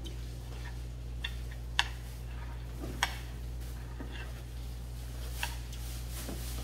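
Metal chopsticks clicking against a stainless-steel bowl as food is stirred and mixed: a few sharp clicks, the loudest about two and three seconds in, over a steady low hum.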